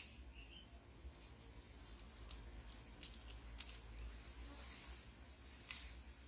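Faint, scattered small clicks and light taps of tweezers and small phone parts being handled during reassembly, over a low steady hum.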